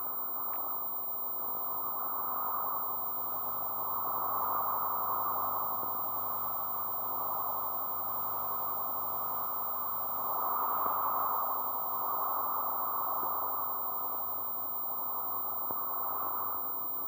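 Experimental electronic soundtrack of steady, muffled noise like a rush of air with the treble cut away. It swells louder about four seconds in and again about eleven seconds in.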